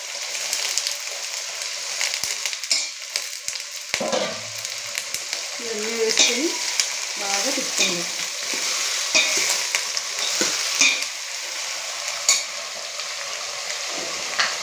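Chopped vegetables sizzling in hot oil and tempering in a stainless steel pot, stirred with a steel ladle that scrapes and clinks against the pot several times in the second half. This is the frying stage of sambar, with the vegetables being sautéed in the tempering before water is added.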